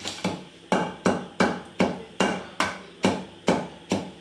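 Long wooden pestle pounding green chillies, cumin and fenugreek in a stone mortar: about eleven steady, even thuds, roughly two and a half a second. The chillies are already well crushed into a paste for chutney.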